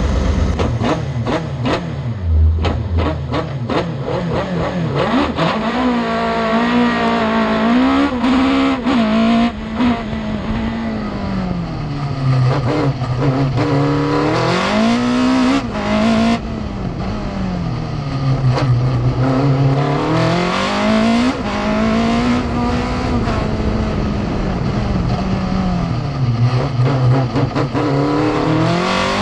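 Race car engine heard from inside an open cockpit. It pulls away hard about two seconds in, then revs up and drops back again and again as it is driven flat out through the gears and corners, over a haze of wind and road noise.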